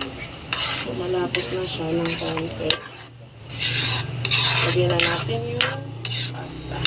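A metal spoon stirring a thick cream sauce in a metal wok, in irregular strokes that scrape and clink against the pan, over a low steady hum.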